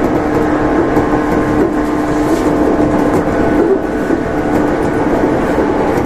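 115 series electric train's MT54 traction motors running loud and steady at speed, a constant drone with a humming tone, heard from inside the driver's cab along with the rumble of the wheels on the rails.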